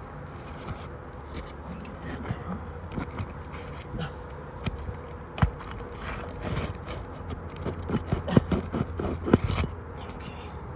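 Roofing nails being pried out from under asphalt shingles: a metal pry tool scraping and clicking against the shingles and nails, a scattered run of sharp clicks and scrapes that grows thick in the last few seconds.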